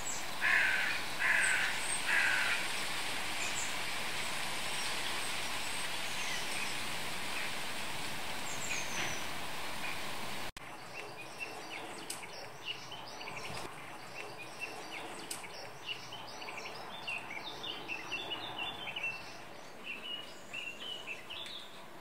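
Garden birds calling and chirping. In the first half, three loud calls sound in quick succession near the start over a steady hiss. After a cut about ten seconds in, the hiss drops away and many quick small-bird chirps follow, busiest near the end.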